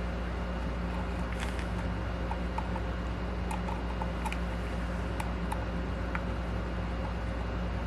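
Small screws and a screwdriver clicking and tapping faintly now and then as screws are fitted into a motor mount, over a steady low electrical hum.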